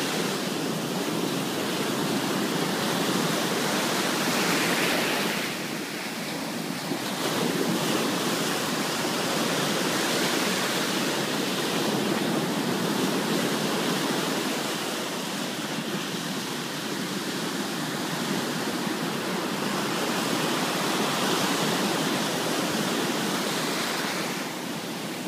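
Ocean surf breaking close by and its foam washing up the sand in a continuous rushing hiss that swells and eases with each wave, with a short lull about six seconds in.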